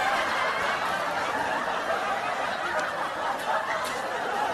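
Laughter from several people, holding an even level.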